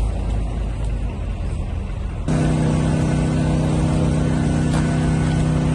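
Low rumbling vehicle and traffic noise, then about two seconds in an abrupt switch to a steady, even engine hum from a vehicle running close by.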